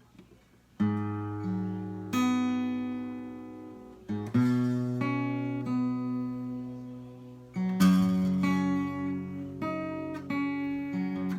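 Guitar intro to a song, starting about a second in: chords struck and left to ring, a new chord every second or two.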